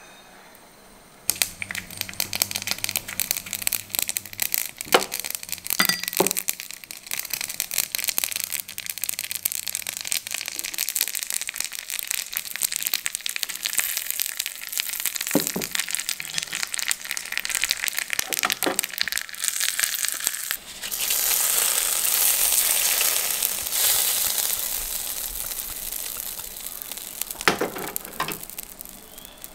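Mustard seeds, dried red chillies and curry leaves crackling and spluttering in hot oil in a small pan for a sambar tempering, with a few louder clicks. About twenty seconds in, the hot tempering is poured onto the sambar and sets off a loud sizzling hiss that slowly fades.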